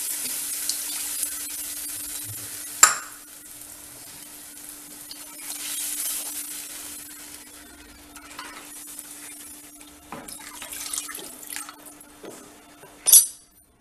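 Tamarind water and then plain water poured into a clay pot of curry masala and stirred with a wooden spoon: a pouring splash for the first few seconds and again about six seconds in, with light scraping and clicks of the spoon. A sharp knock about three seconds in and another loud knock near the end.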